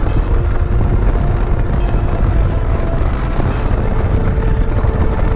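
Kawasaki Dominar 400's single-cylinder engine running steadily while riding at road speed, mixed with wind noise on the microphone and road rumble.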